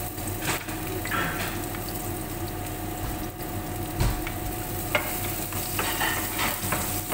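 Chopped garlic sizzling in hot oil in a nonstick frying pan, stirred with a wooden spatula that scrapes and knocks against the pan now and then.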